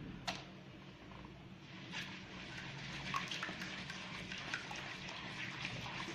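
Fish frying in hot oil: scattered crackling and spattering that thickens about two seconds in, after a single sharp click near the start.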